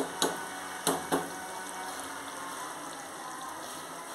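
Tomato kuzhambu simmering in a pot with a steady bubbling hiss. A stirring utensil knocks against the pot about four times in the first second or so.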